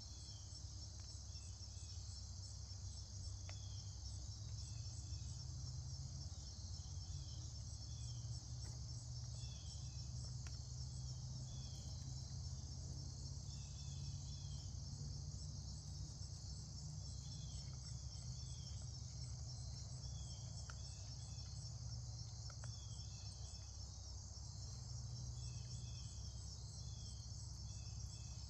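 Steady high-pitched chorus of insects trilling without pause, with short chirping notes coming in small groups throughout, over a low steady rumble.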